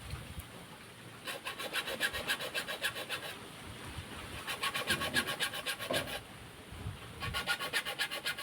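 A hand tool worked rapidly back and forth on wood, in three bouts of quick, even strokes with short pauses between.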